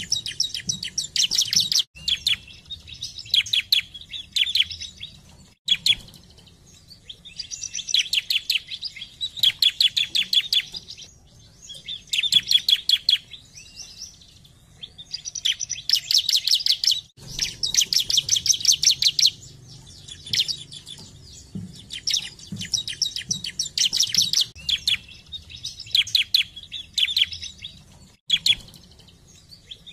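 Bar-winged prinia (ciblek) singing: burst after burst of fast, rapidly repeated high, sharp notes, each burst a second or two long with short pauses between. The song breaks off abruptly a few times where the recording is cut.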